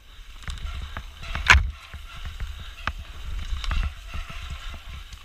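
Mountain bike on a rough, rocky trail: a steady stream of rattles and clicks from the chain and frame over a low rumble, with one sharp clunk about a second and a half in.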